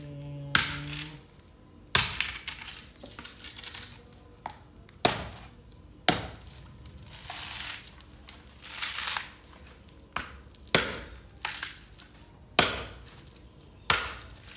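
Irregular crinkling, crackling and sharp snapping from fresh red chilies being handled and their stems picked off by hand, with a brief hummed voice right at the start.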